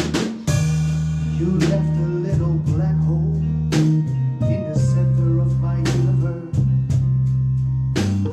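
Acoustic band music without vocals: guitar playing over a low bass line that changes note every second or so, with sharp percussive hits about twice a second.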